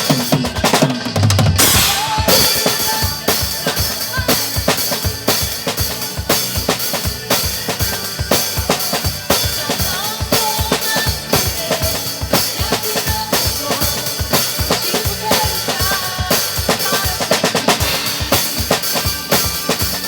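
Drum kit played as a steady groove of bass drum and snare with cymbals, along with the recorded song. A big cymbal hit comes about two seconds in.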